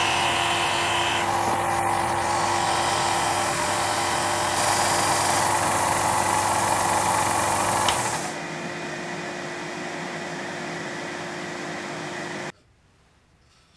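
Disc sander on a homemade belt-and-disc sanding machine, grinding a wooden jig edge: a steady rasping sanding noise over the motor's hum. About eight seconds in the workpiece comes off the disc and only the quieter motor whir runs on, then the sound stops abruptly near the end.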